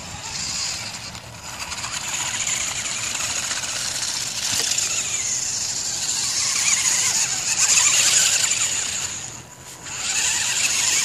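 Homemade radio-controlled 4x4 truck driving over grass, its motor and gears giving a high whine that rises and falls with the throttle and sags briefly about nine and a half seconds in.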